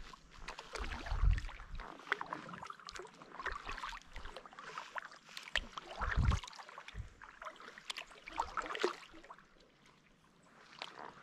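Kayak paddle strokes: water splashing and dripping off the paddle blades in an irregular rhythm, with a couple of low bumps. The paddling eases off near the end.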